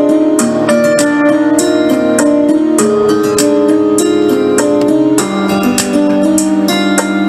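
Music with plucked guitar, sustained notes and frequent percussive hits, played over Bluetooth from a phone through the NBY-18 mini portable speaker.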